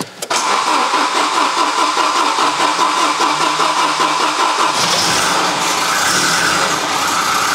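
Volvo red block four-cylinder engine being cranked on the starter with a steady rhythmic beat for about four and a half seconds after sitting, then catching and settling into running.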